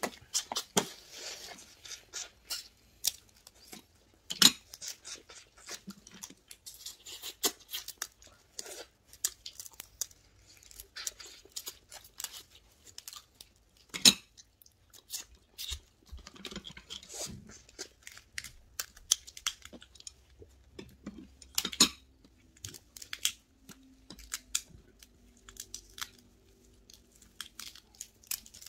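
Cooked red snow crab shells and legs being cracked and pulled apart while eating, with irregular sharp snaps and clicks, the loudest about four, fourteen and twenty-two seconds in, and chewing in between.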